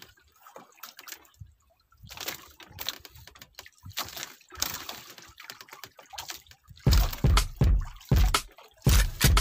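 Irregular water sloshing and splashing. About seven seconds in it gives way to a series of loud, low thumps.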